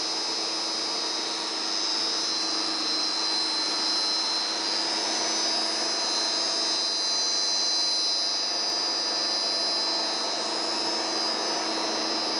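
Gearbox test rig running steadily: an electric motor driving a gearbox through a shaft coupling into a dynamometer. It gives a constant machine hum with a steady high whine over it.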